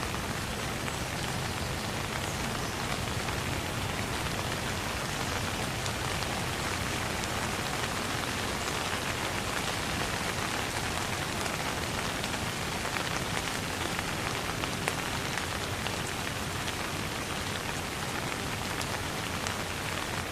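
Steady light rain falling, an even patter of many small drops on surfaces.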